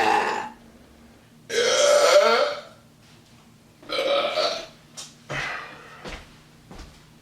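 A man burping on command: three loud, drawn-out burps, the second the longest and loudest, followed by a few short, quieter ones.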